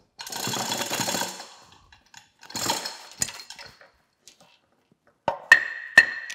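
Steel hoist chain rattling as it is handled, in two stretches, then three sharp hammer blows on metal near the end, each leaving a short, high metallic ring.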